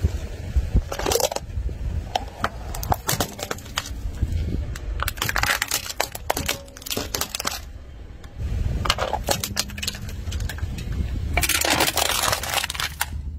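A car tyre rolls slowly over small objects on asphalt, crushing them with a string of sharp cracks, snaps and crunches over the low rumble of the tyre. The objects are a balloon first, then plastic toy pieces, then two aluminium soda cans near the end, where the crackling is densest.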